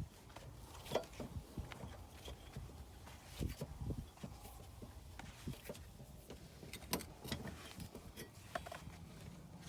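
Car jack being cranked down by hand, turned counterclockwise, with irregular metallic clicks and knocks and a few dull thumps as the handle turns and the jack settles.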